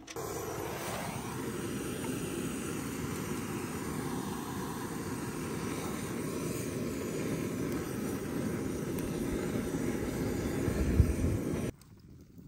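Handheld gas torch running with a steady hiss as its flame is held to campfire kindling to light it. The sound swells slightly near the end, then cuts off suddenly.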